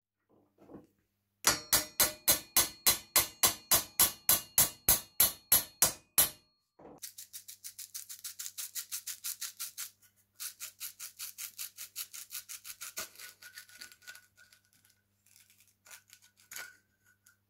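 A quick run of about nineteen sharp knocks, roughly four a second, ringing through the steel bench vise as the old trowel's wooden handle is knocked loose from its tang. Then a rapid squeaking, scraping rattle as the handle is twisted back and forth on the rusty tang and worked off by hand.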